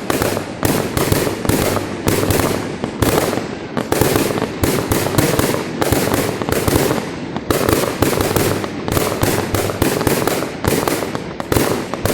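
Fireworks going off in dense volleys: several sharp reports a second, close together, over a constant rumble of overlapping bangs.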